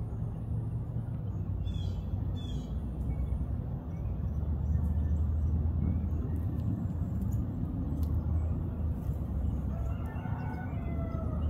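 Low, steady rumble of a distant rocket launch, growing louder about four seconds in. A rooster crows near the end, and a small bird chirps twice about two seconds in.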